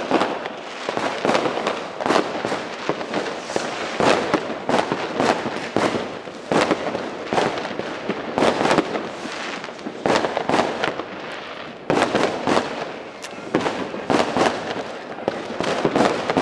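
Fireworks and firecrackers going off in a dense, unbroken barrage: many sharp bangs and crackles overlapping, several a second.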